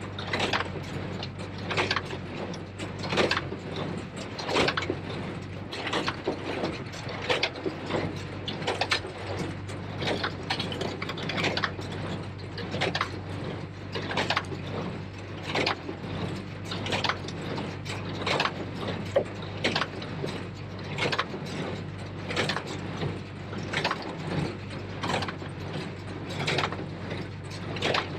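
New Holland 273 small square baler at work: its plunger and mechanism clank and rattle in a steady rhythm, about one to two strokes a second, over the steady drone of the Case IH JX75 tractor pulling it.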